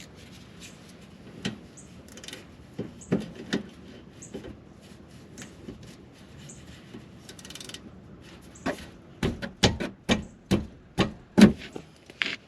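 Hand tools on a rear brake caliper: the clicks and clinks of a 14mm socket wrench loosening and taking out the caliper's slide-pin bolts. Scattered light clicks give way, in the last few seconds, to a quick run of sharper clicks about two to three a second.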